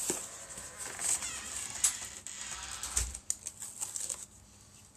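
Cardboard box and foam packing being handled and opened: scraping and rustling with scattered clicks, and a dull knock about three seconds in, dying down near the end.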